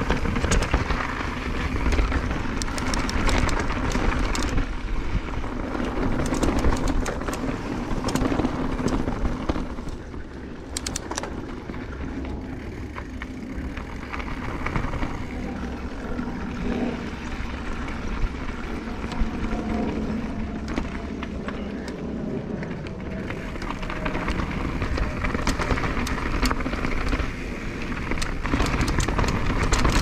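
2022 Nukeproof Dissent Comp mountain bike riding down a dirt trail: tyres rolling over dirt and leaves, with the frame and drivetrain rattling and clicking over roots and rocks. Wind rumbles on the microphone throughout.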